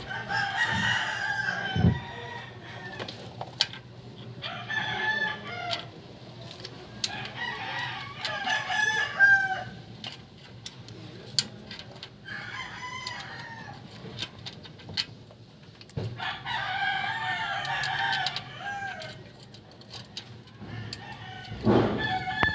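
Roosters crowing several times, each crow lasting one to three seconds, with scattered sharp clicks in between.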